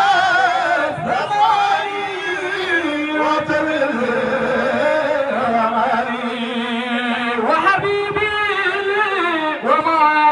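Men's voices singing a Sufi zikr chant in Arabic, with long held notes that waver and slide in pitch.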